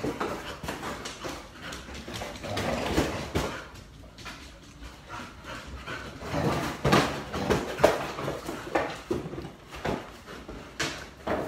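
A puppy playing with an empty cardboard cereal box: irregular rustling, scraping and knocks of the box, with short dog noises mixed in, busiest a little past halfway.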